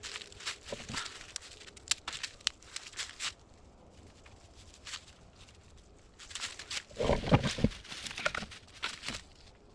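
Rustling and crackling of dry forest-floor litter being disturbed, with scattered sharp snaps and a louder flurry of rustling and low thuds about seven seconds in.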